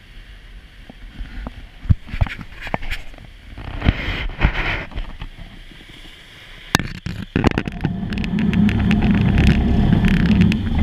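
Deck noise on a moving tour boat: wind on the microphone and a low rumble that grow much louder about two-thirds in. Several sharp knocks come in the first half as the camera is handled and turned.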